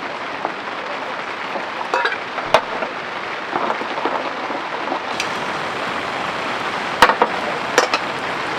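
Heavy rain falling on a waterproof camping tarp, a steady hiss, with a few sharp knocks: one about two and a half seconds in and two close together near the end.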